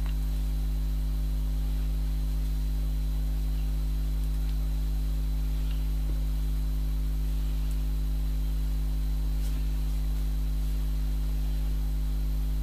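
Steady electrical mains hum with several low overtones, unchanging throughout, and a few faint light clicks now and then.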